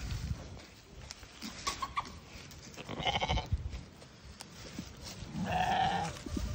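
Bleating from a flock of sheep and goats at feeding: a short, wavering bleat about three seconds in, then a longer, louder bleat near the end.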